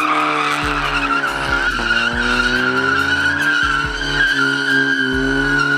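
Pickup truck doing donuts: tires squealing steadily while the engine is held at high revs.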